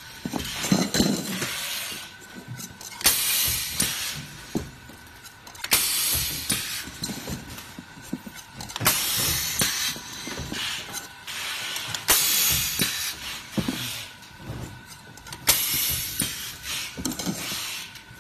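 Factory machinery running in cycles: a loud rush of hissing about every three seconds, each lasting one to two seconds, over a faint steady high whine.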